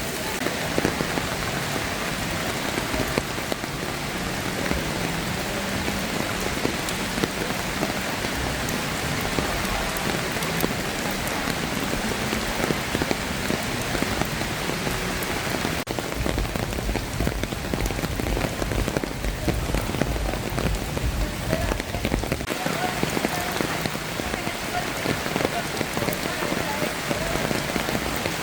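Steady rain falling, a dense patter of drops hitting surfaces. A deeper low rumble joins for several seconds past the middle.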